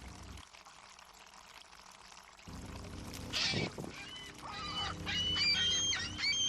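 Seagulls calling, with a run of repeated high, arching calls in the second half. Before that comes a quieter stretch and a brief splash-like wash of water about halfway through.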